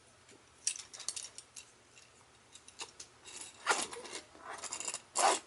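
Hard plastic parts of a Transformers Ratchet action figure clicking and rattling as they are handled and turned over, with a louder clack near the end.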